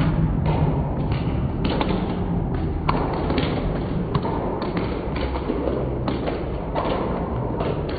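Football crowd noise in a stadium, broken by many irregular thumps and knocks.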